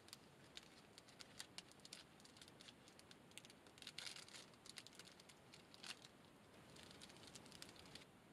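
A plastic snack packet being handled and opened: faint, irregular crinkling and crackling, with a thicker cluster of crackles about four seconds in.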